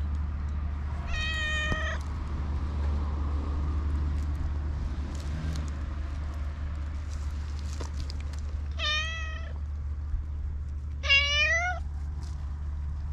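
Domestic cat meowing three times: one meow about a second in, then two more near the end, the last rising in pitch and the loudest.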